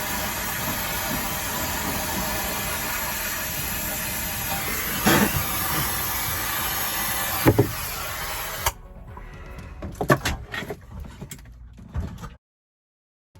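Steady hiss of a brazing torch flame on copper refrigerant line, broken by two sharp knocks. It cuts off suddenly a little under two-thirds of the way in, followed by a few quieter clicks.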